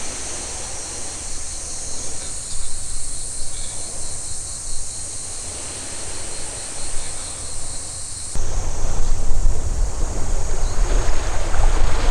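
High-pitched insects buzzing steadily, with a faint pulsing note above the drone. About eight seconds in, this cuts to wind buffeting the microphone, with small waves washing on a beach, louder than before.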